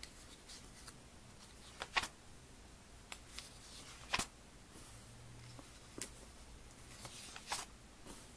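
Glossy catalog pages turned and handled: several short, crisp paper rustles and snaps, the loudest about two and four seconds in.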